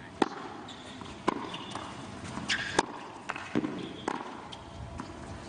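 Tennis doubles rally on a hard court: sharp pops of the ball off the rackets and the court, about seven strokes roughly a second apart.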